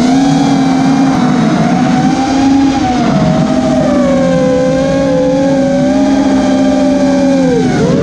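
Brushless motors and propellers of a self-built freestyle FPV quadcopter whining in flight, several tones together whose pitch wavers with the throttle and dips sharply near the end.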